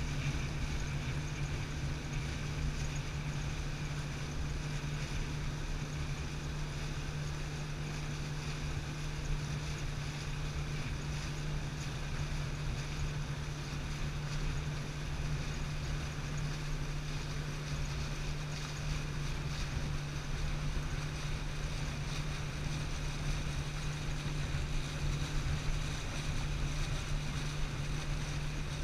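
Pontoon boat's motor running at a steady cruising speed, a constant low hum, with a rush of wind and water beneath it.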